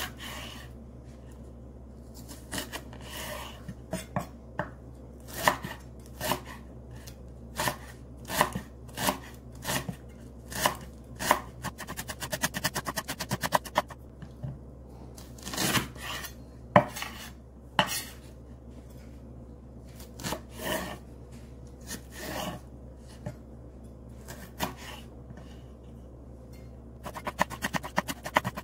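Chef's knife cutting a leek on a wooden cutting board: separate irregular knife strikes against the board, a quick run of light strokes around the middle, and fast rhythmic chopping near the end.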